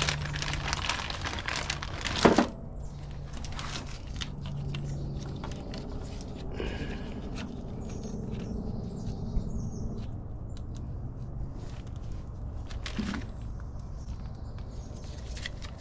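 Hand work on a carburetor spacer and its gaskets: rustling and light clicks, loudest in the first two seconds, then scattered small clicks and one sharper knock near the end.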